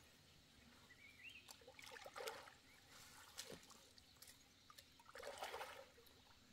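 Faint sloshing and trickling of shallow pond water stirred by legs wading through it and a fishing net being hauled along, with soft splashes about two seconds in and again near five and a half seconds.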